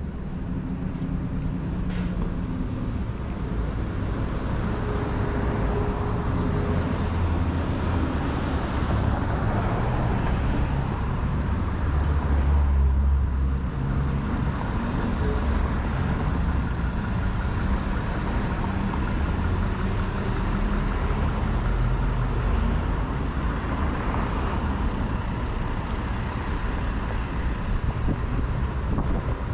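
Road traffic at a city intersection: cars, a truck and a bus running and passing in a steady low rumble, which swells for a couple of seconds around the middle as a heavy vehicle goes by.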